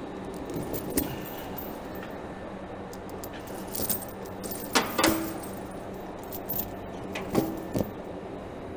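Steel tire chain links clinking and jangling against each other as a chain is pulled around a tractor's rear tire and fastened. The clinks come in scattered bursts, the loudest about halfway through, over a faint steady hum.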